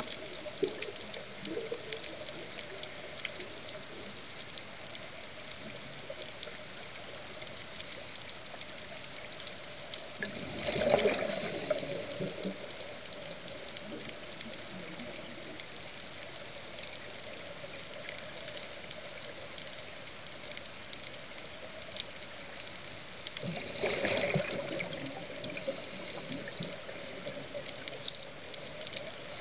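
Underwater ambience heard through a camera housing: a steady hiss with scattered faint clicks. Two louder gurgling surges of bubbles, about eleven seconds in and again about thirteen seconds later, are a scuba diver's exhaled breath.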